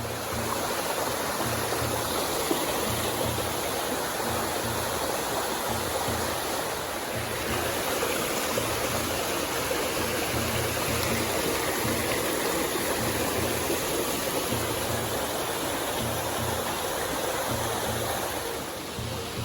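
Rushing water of a mountain river falls, a steady full hiss.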